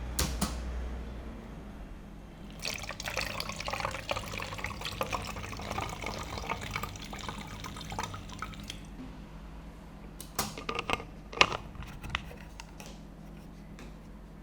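Liquid being poured and splashing for about six seconds, followed by several sharp knocks or clicks.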